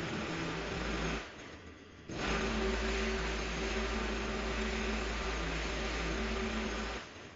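Petrol hedge trimmer running at full throttle, dropping to a low idle for about a second a little over a second in, then revved back up and held before dropping to idle again near the end.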